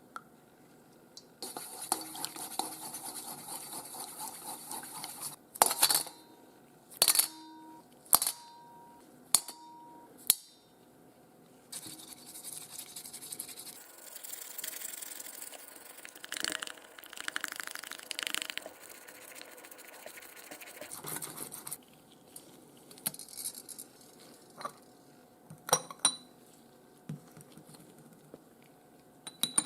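Small metal watch parts and tools clicking and clinking on a watchmaker's bench, a handful of sharp ticks with a brief metallic ring, between two stretches of a small buzzing tool.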